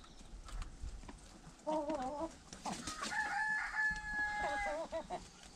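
A rooster crowing. First comes a short wavering call about two seconds in, then one long held crow of nearly two seconds that breaks into a wobble at the end.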